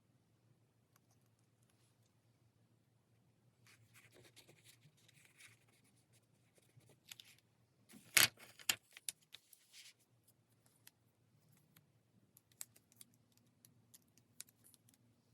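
Stationery handled on a desk: about two seconds of scratchy paper rustling, then a sharp click about eight seconds in, followed by several lighter clicks and taps.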